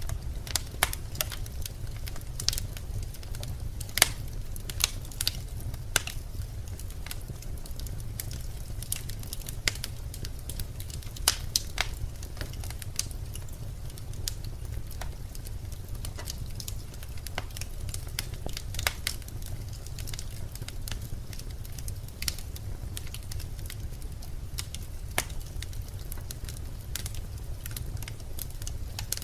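Birch logs burning in a fireplace: irregular sharp crackles and pops over a steady low rumble of the flames.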